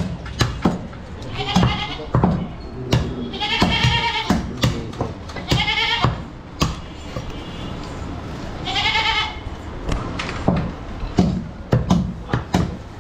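Goat bleating four times, each a quavering call of up to about a second, over frequent sharp knocks of meat being chopped.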